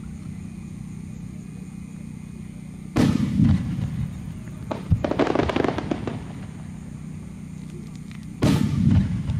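Aerial fireworks going off: a sudden loud boom about three seconds in, a dense burst of crackling a second or two later, and another loud boom near the end.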